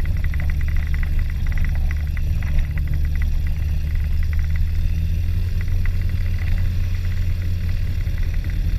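Motor glider's water-cooled piston engine idling steadily on the ground while it warms up, a constant low hum.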